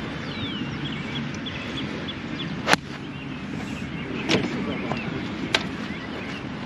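Golf club striking a ball: one sharp crack about three seconds in, followed by two softer knocks.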